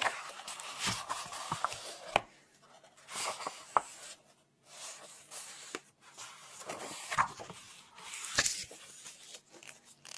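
Close-miked handling sounds of paper and objects: rustling in patches a second or so long, broken by several sharp taps and clicks.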